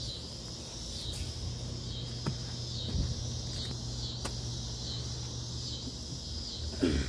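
Outdoor insect chorus: a steady, high, pulsing buzz. A few short knocks sound through it, about two and three seconds in and again after four seconds.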